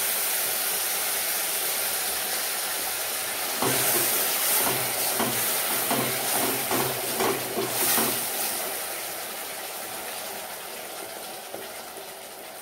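A seed, cashew and ginger paste hissing and sizzling as it fries in hot oil in a steel kadai, the sizzle slowly dying down. From about four to eight seconds a spatula scrapes and knocks against the pan as the paste is stirred.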